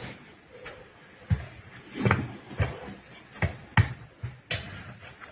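Several irregular thumps and knocks, each short and sudden, spaced unevenly.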